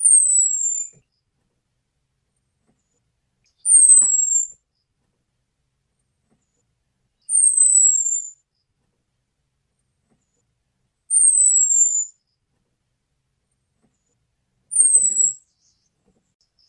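Orange-headed thrush call: a high, thin whistle that slides down in pitch, about a second long, repeated five times at a steady interval of about four seconds. It is the call used to lure male orange-headed thrushes.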